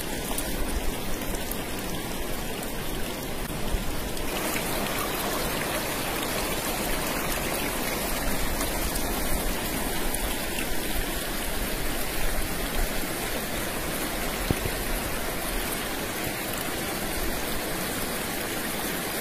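Shallow river flowing over rocks: a steady rush of water.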